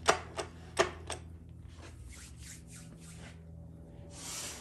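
Metal parts of a Dodge 48RE transmission's gear train clinking as the gear set is settled by hand into the case: four sharp clicks in the first second, then softer rubbing and shuffling, and a short hiss near the end.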